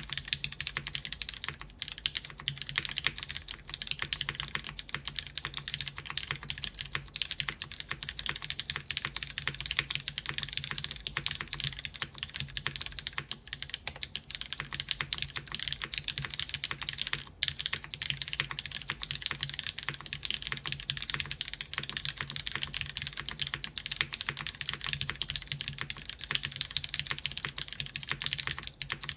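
Continuous fast typing on a mechanical keyboard with lubed Cherry MX Brown tactile switches on an aluminum plate, GMK keycaps bottoming out in a dense, even stream of key clicks, with only brief pauses.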